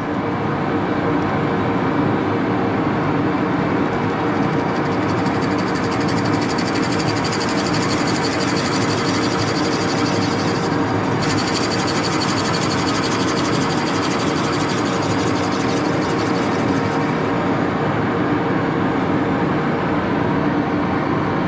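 Axelson engine lathe running steadily, turning a large drill bit held in its chuck that bores a 1-1/8 inch hole through a thin oak board fed against it. The machine's steady hum carries the hiss of the bit cutting into the oak, which is strongest through the middle stretch.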